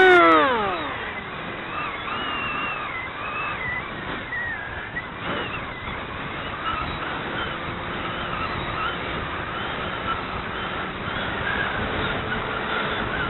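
A radio-controlled model aircraft's motor winds down steeply in pitch within the first second as the throttle is cut. It is followed by steady air and wind noise with faint wavering higher tones as the model glides in to land, and a brief knock about five seconds in.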